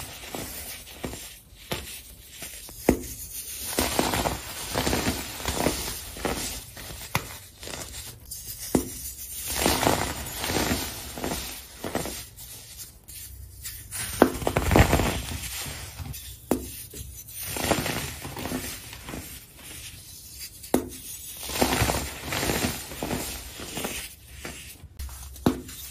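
Packed, coloured baking soda crunching and crumbling as hands squeeze and break it apart, in irregular crisp bursts, the loudest about halfway through.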